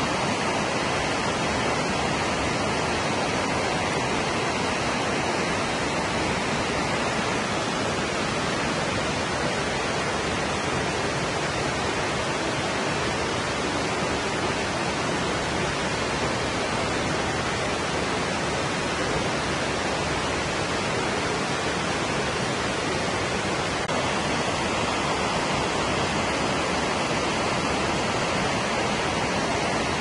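Waterfall: falling water rushing steadily and evenly, with no breaks or separate events.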